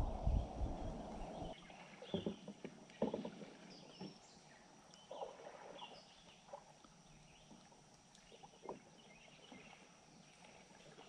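A low rumble that stops abruptly about a second and a half in, followed by scattered soft knocks and a few faint high chirps.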